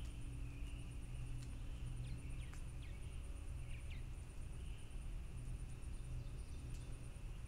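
Outdoor ambience: a steady low hum under a constant high insect drone and a fast, even, very high insect trill. A few faint short bird chirps come in the middle, with scattered light ticks.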